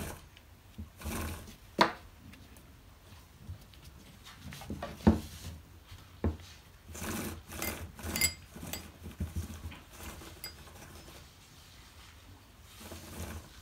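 Chainsaw chain and guide bar handled by hand: irregular metal clinks and knocks with rubbing and scraping, the sharpest knock about five seconds in and a quick run of small metallic clinks with a brief ring a few seconds later.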